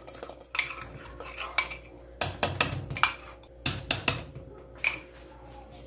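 A spoon knocking and scraping against a ceramic mug as a thick milk cream is poured out into an aluminium pot: a string of short, irregular clinks and knocks.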